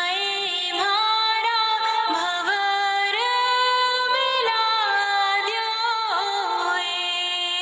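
A woman singing a Rajasthani folk song, with long held notes joined by ornamented pitch glides.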